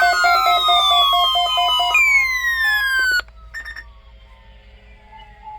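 Electronic siren-like tones: a pitch sliding downward that restarts about every three seconds, over a rapid beeping pattern of about four beeps a second. The sound cuts off suddenly about three seconds in, then comes a brief burst of tones and faint background sound.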